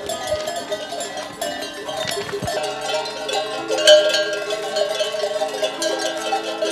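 Many bells worn by a moving flock of ewes, clanking and jangling irregularly as the sheep walk, with a low steady tone coming in about halfway through.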